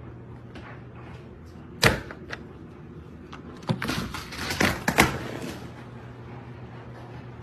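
A door being opened by its round metal doorknob: a single sharp click about two seconds in, then a cluster of latch clicks and rattles about four to five seconds in.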